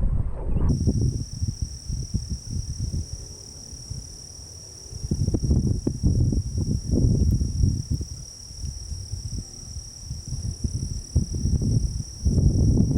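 Steady high-pitched insect chorus of crickets, over irregular low rumbling and thumps that are the loudest thing throughout.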